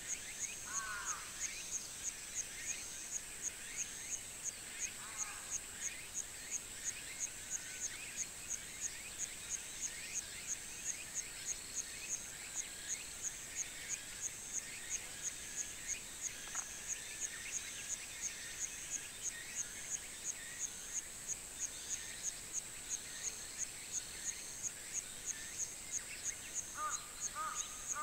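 Countryside summer morning ambience. A high-pitched insect chirrs in a steady pulse of about two chirps a second, while many small birds call and twitter. A lower, falling bird call comes near the start and again near the end.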